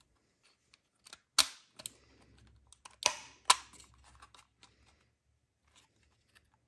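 Sharp plastic clicks and knocks from handling the climate control panel of a Toyota Land Cruiser 80 series, its housing and buttons clicking as it is turned over and pressed. A handful of clicks, the loudest about halfway through, then a few faint ticks.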